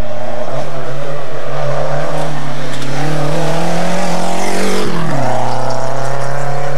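Renault 5 rally car's engine pulling hard uphill toward the listener, its pitch climbing steadily. About five seconds in it passes close by with a sharp drop in pitch, then runs on at a steady lower note as it pulls away.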